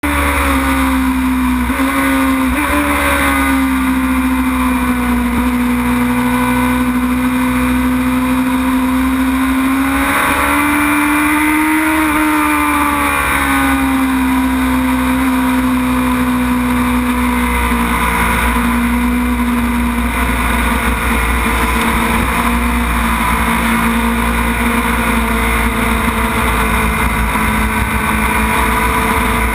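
Suzuki GSX-R 600 inline-four engine heard from a camera on the bike at track speed, holding a steady high pitch, with a few short dips near the start and a slow rise and fall in pitch around the middle as the throttle changes. A steady rushing noise runs underneath.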